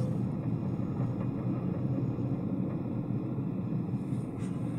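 Car moving slowly, heard from inside the cabin: steady low engine and tyre noise on the road.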